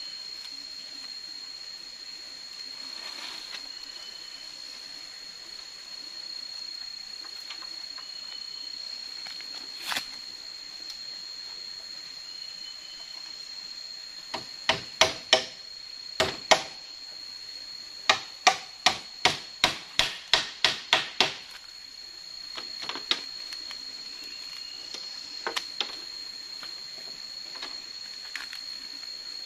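Steady high-pitched insect drone of a tropical forest, with a few short rising bird chirps. Roughly in the middle, two runs of sharp knocks, about three a second, are the loudest sounds, with a few more near the end.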